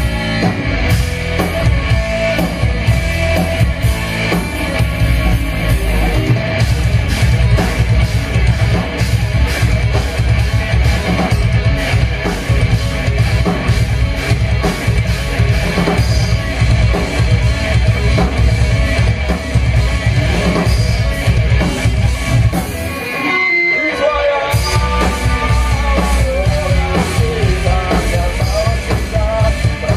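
Live rock band playing in a club: electric guitars, bass guitar and a drum kit at a fast beat. About 23 seconds in, the bass and drums drop out for a second or so, then the full band comes back in.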